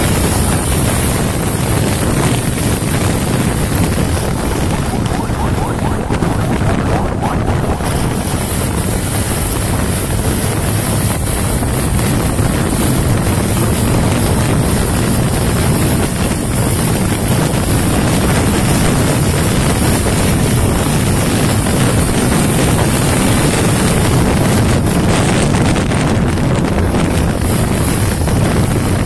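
Honda TMX 125 motorcycle's single-cylinder four-stroke engine running hard at high revs at about 100 km/h, under heavy wind rush on the microphone. The bike shifts up from fourth to fifth partway through, with a brief dip in the noise about seven seconds in.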